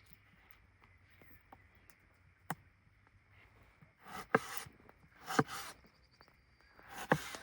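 Wood being worked with a hand tool: a single sharp knock, then three knocks each with a short scrape, about a second or two apart.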